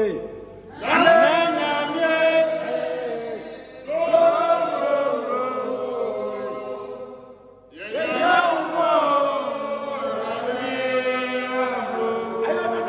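A group of voices chanting together in three long sung phrases. Each phrase starts strongly, about one, four and eight seconds in, then trails off.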